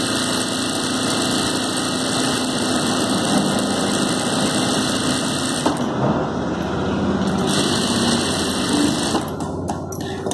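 Industrial single-needle sewing machine running steadily as it stitches a folded edge of blouse fabric, stopping about a second before the end, followed by a few light clicks as the fabric is drawn away.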